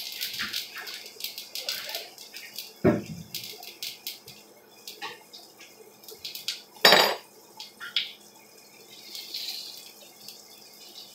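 Kitchen handling noise: irregular clinks and knocks of dishes and utensils over a faint hiss, with two louder knocks about three and seven seconds in.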